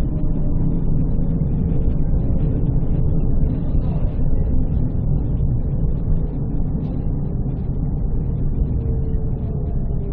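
Končar NT 2200 low-floor tram running along the track: a steady low rumble of wheels on rails, with a faint motor whine that shifts slightly in pitch.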